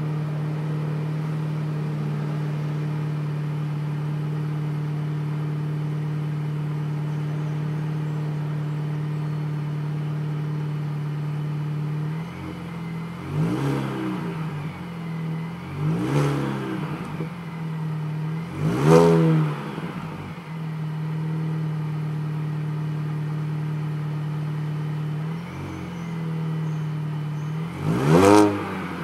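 Stock Mini Cooper S engine idling steadily after a cold start, then blipped: three quick revs rising and falling in turn from about halfway through, the third the biggest, and one more sharp rev near the end.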